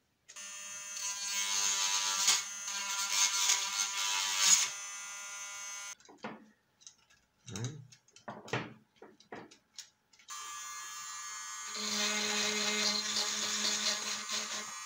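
A small electric motor whines steadily for about five seconds. It stops, and a few clicks and knocks of handling follow. From about ten seconds in, a corded rotary tool runs with a high whine and grows stronger near twelve seconds as it bites into the 3D-printed plastic rotor to open up its hole.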